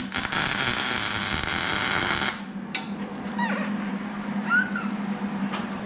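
MIG welding arc crackling steadily, cutting off abruptly about two seconds in. A steady low hum runs underneath, with a few faint high squeaks after the arc stops.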